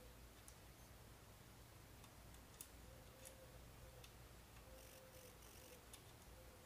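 Near silence, with a few faint, scattered clicks of a screw being worked by hand into the holes of a skeg guard on an outboard's lower unit.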